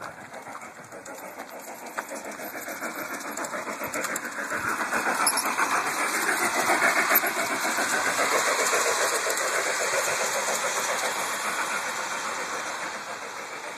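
Garden-scale model train running on its track with a rapid, continuous rattle of wheels and motor. It grows louder as the train comes close, about halfway through, then fades as it moves away.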